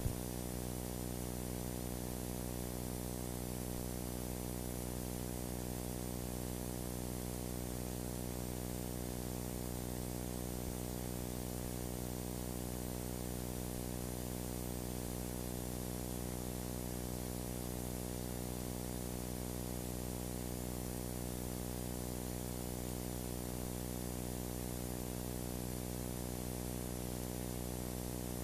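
Steady electrical hum buzzing with many evenly spaced overtones over a layer of hiss, unchanging: the noise of a blank video signal with no programme sound.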